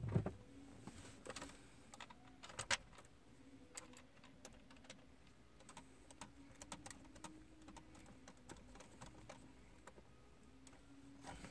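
Scattered faint clicks and taps of hard plastic as hands handle and fit together the parts of a 2011 Dodge Grand Caravan's heater control unit, with a sharper click about a quarter second in and another near three seconds, over a faint steady hum.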